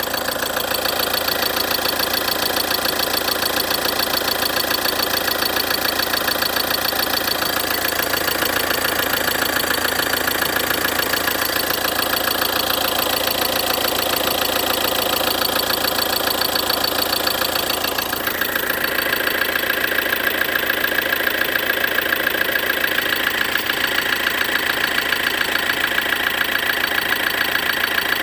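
2013 Ford Transit's 2.2 TDCi diesel engine running steadily with a regular knock in the engine.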